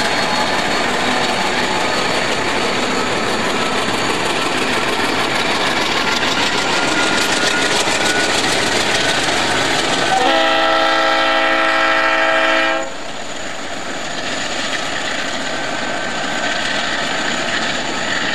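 A freight train running past with a steady rumble and wheel noise. About ten seconds in, a diesel locomotive's chime air horn sounds one long blast of about two and a half seconds, several notes at once, after which the train noise is somewhat quieter.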